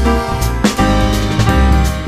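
Background music: piano-led instrumental over a steady beat.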